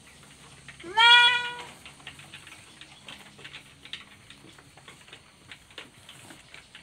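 A goat kid bleats once, a single call rising in pitch about a second in. Afterwards there is only faint rustling and small ticks as cloth strips are wound and tied around its splinted leg.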